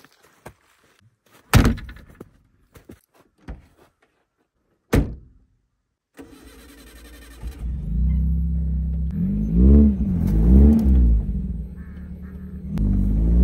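Two sharp thuds in the first few seconds, then about six seconds in an off-road SUV's engine starts and runs, revving up and down a couple of times.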